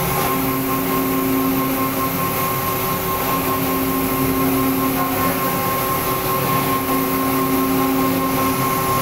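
Chicken waste rendering machinery running: a steady industrial motor hum with several constant tones, its low part swelling and easing about every three seconds.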